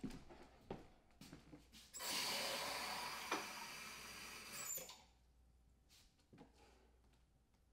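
Footsteps on a wooden floor, then water running from a kitchen tap for about three seconds before it is shut off abruptly.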